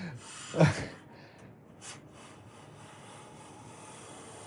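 A No. 5½ hand plane with a freshly sharpened blade, drawn in one long, steady stroke along a board and taking a shaving: an even rasping hiss that starts about two seconds in, just after a light click.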